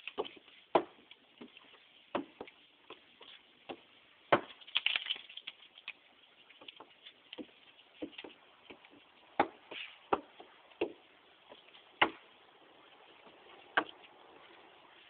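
Cloven hoof costume boots clopping with each step: sharp, separate knocks at uneven spacing, from under a second to almost two seconds apart.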